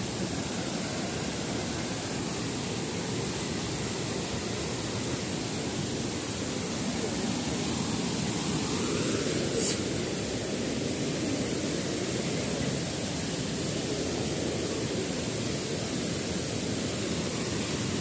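Steady rushing of a small waterfall pouring into its pool, with a brief click about ten seconds in.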